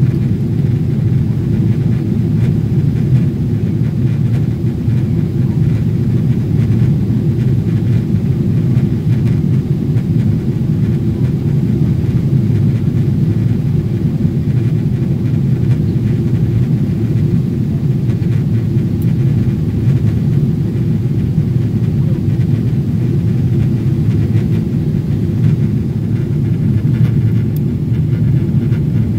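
Steady low rumble of an airliner's jet engines and airflow, heard inside the passenger cabin during the climb after takeoff.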